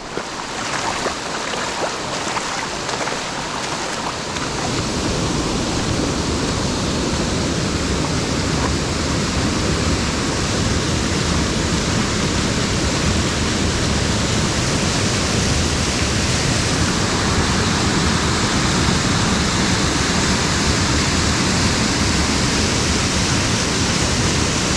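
Waterfall on a mountain stream, a steady loud rush of falling water that grows louder over the first few seconds and then holds.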